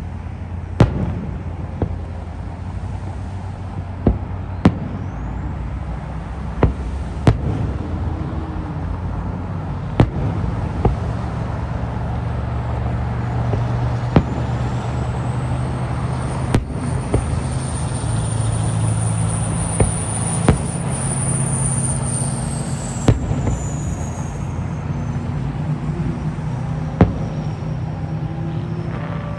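Aerial fireworks shells bursting: about fifteen sharp booms at irregular intervals over a steady low rumble. A high whistle rises through the middle, holds for several seconds, then falls away.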